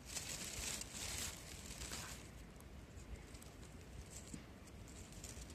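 Rustling, loudest in two swells in the first two seconds, then dying down to a faint hiss with a few light clicks.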